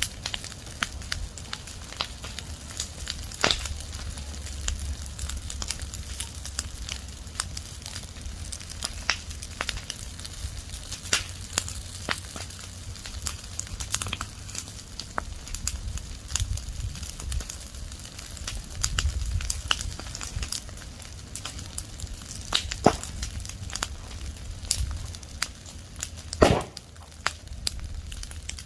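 Dry leaves and twigs burning in an open fire, crackling with irregular sharp snaps and pops over a low rumble; one louder pop comes near the end.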